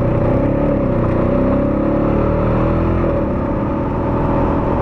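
ATV engine running along a trail under changing throttle, its pitch rising and falling for the first few seconds, then holding steadier.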